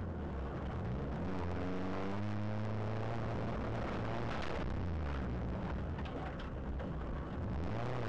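Renault Clio S1400 rally car's engine heard from inside the cabin, its revs rising and falling several times as the car is driven hard through a course.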